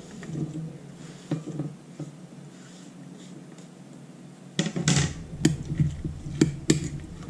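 A metal spoon stirring chopped vegetables and cream of mushroom soup in a mixing bowl, clinking sharply against the bowl's side about half a dozen times in the last few seconds. Before that, softer sliding and tapping as chopped bell pepper is scraped off a plastic cutting board into the bowl.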